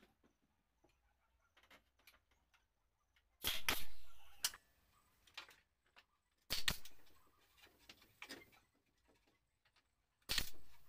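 Woodworking on a pallet-wood sofa: three loud, sudden bursts of tool noise about three seconds apart, each fading away over about a second, with faint clicks and knocks between them.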